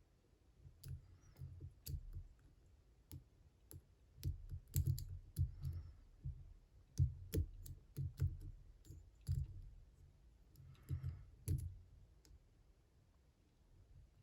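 Brinks commercial padlock being picked with a hook and tension wrench: faint, irregular metallic clicks and small knocks as the pick works the four pin stacks in the keyway, still not set.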